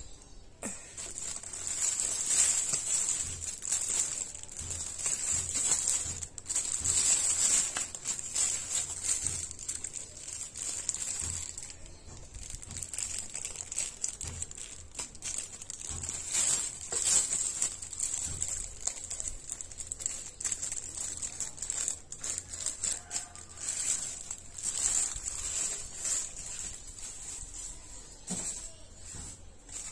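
Clear plastic bag crinkling and rustling in irregular bursts as a coiled dishwasher hose wrapped in it is handled.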